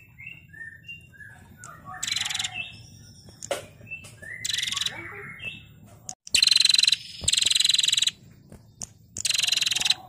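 Female prenjak, a small Indonesian warbler, giving its 'ngetir' call: five harsh, rapid rattling trills of under a second each, with softer short chirps between them.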